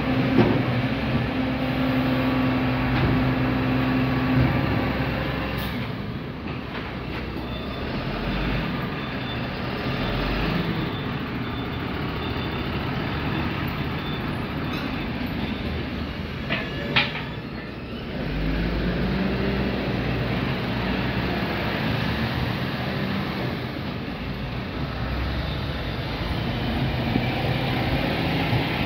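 MAN TGM 26.340 refuse truck's six-cylinder diesel engine running close by, its note shifting several times, with one short sharp clank about two-thirds of the way through. About 18 seconds in the engine gets louder and pulls harder.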